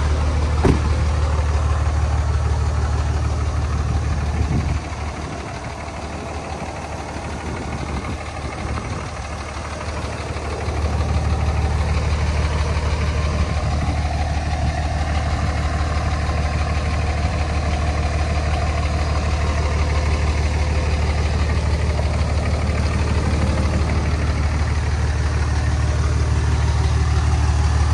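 2004 5.9 Cummins inline-six turbo diesel idling steadily. It drops in level for about six seconds from around five seconds in, then comes back up.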